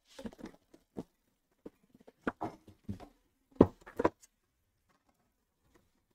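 Hands handling boxes of trading cards on a tabletop: a string of knocks, taps and cardboard rustles, the two loudest knocks about three and a half and four seconds in, after which the handling stops.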